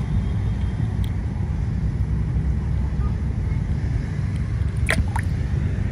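Steady low outdoor background rumble, with a few faint clicks about a second in and near five seconds.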